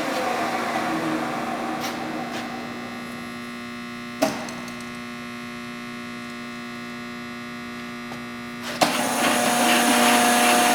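Leblond servo shift lathe's geared headstock running and winding down, leaving a steady motor hum. A sharp clunk comes about four seconds in, and another near the end as the gearhead starts up again, louder, at a new spindle speed.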